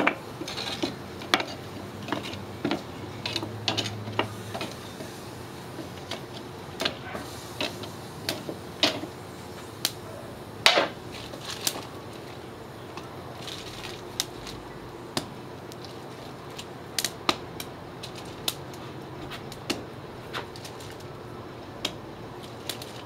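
Charcoal grill crackling, with water-soaked cedar planks charring on the hot grate: irregular sharp pops and clicks over a low hiss.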